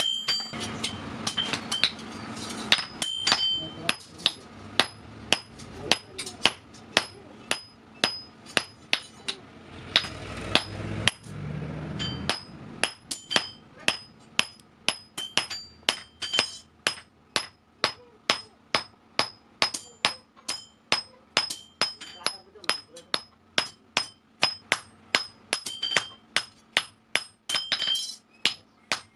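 Hand-hammer blows forging a steel vehicle axle on an anvil, struck in a steady rhythm of about two to three blows a second, each with a high metallic ring. The strikes break off briefly about ten seconds in, then resume.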